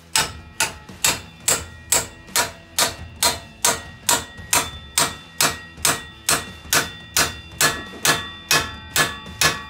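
Hammer blows on steel, most likely driving a ball-joint separator fork (pickle fork) to knock an upper ball joint loose from the steering knuckle. The blows come steadily, about two a second, each with a short metallic ring.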